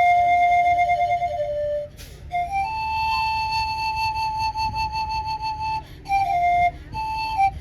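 Solo wot, the Isan circular bamboo panpipe, playing a melody of short notes. It breaks off briefly about two seconds in, then holds one long slightly wavering note for about three seconds before moving on in shorter notes.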